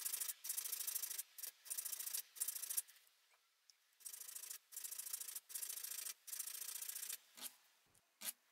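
Hand file rasping across the cutting edge of a twist drill bit in short back-and-forth strokes, sharpening the dull bit. About five strokes, a second's pause, four more strokes, then a couple of light clicks near the end.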